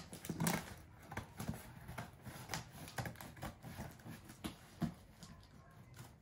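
A cardboard box and its packaging being handled and opened: irregular clicks, taps and rustles, a few sharper than the rest.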